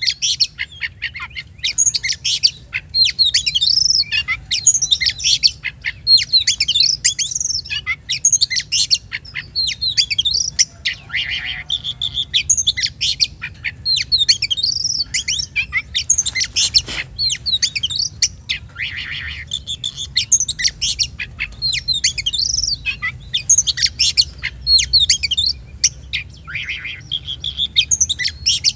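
Oriental magpie-robin (kacer) singing a fast, varied song of whistles, chirps and trills, phrase after phrase with only brief pauses.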